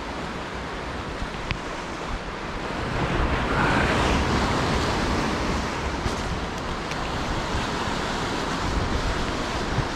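Sea surf washing against a rocky shore, with wind buffeting the microphone. The surf swells louder about three seconds in.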